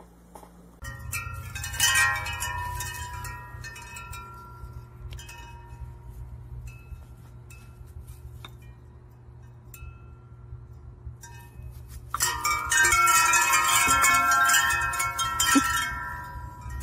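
Hanging wind chime tubes knocked into ringing, likely by a puppy: a loud jangle about two seconds in that dies away into occasional single notes. From about twelve seconds on the chimes are struck again and again in a loud, continuous jangle, over a low steady rumble.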